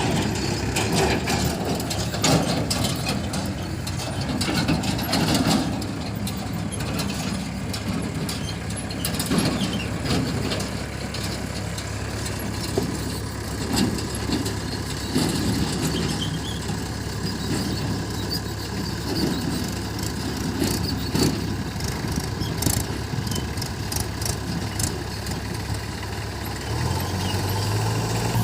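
Diesel engines of a JCB 3DX backhoe loader and a Mahindra 575 tractor running at a loading job, with scattered knocks and clatter. About 27 seconds in, the engine note changes to a steadier, louder hum.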